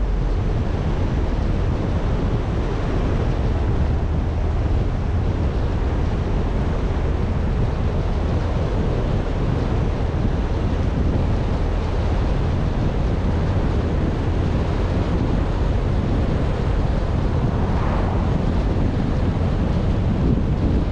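Steady wind and road noise from a moving car, with wind rumbling on the microphone.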